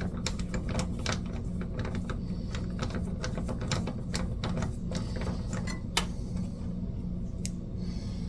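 Irregular light clicks and taps of small screws, posts and plastic parts being handled and fitted on a pinball playfield, over a steady low hum.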